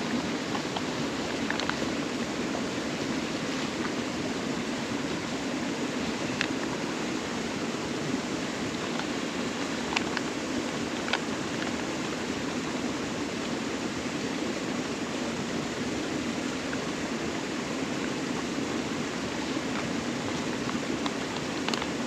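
Steady rushing of a nearby waterfall and stream, with a few short light clicks about a third and halfway through.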